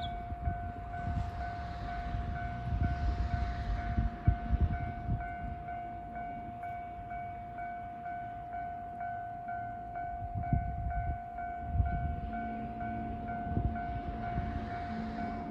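Japanese electronic level-crossing warning bell ringing in an even, repeating pattern over a steady tone, with the low uneven rumble of a train passing the crossing.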